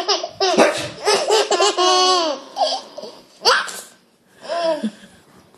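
One-year-old twin boys laughing in high-pitched bursts, with a sharp short burst about three and a half seconds in and a last laugh near the end.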